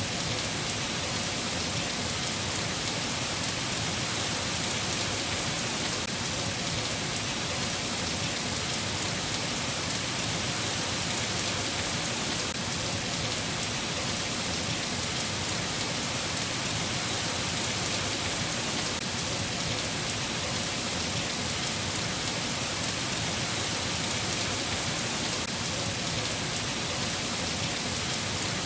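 Steady rain falling: an even, unbroken hiss with no thunder or other events.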